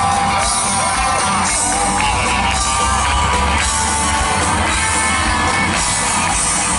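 Live rock band playing loud through a PA: electric guitars sustaining notes over drums and bass, heard from the audience.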